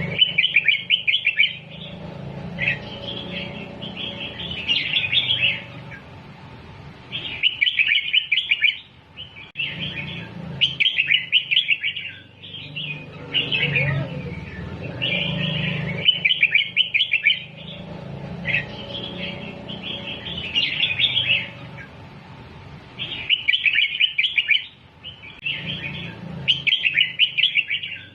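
Red-whiskered bulbul singing its 'double' song, phrases with doubled notes used to teach young bulbuls: bright, quick warbled phrases of about a second each, repeated every two to three seconds over a low steady hum.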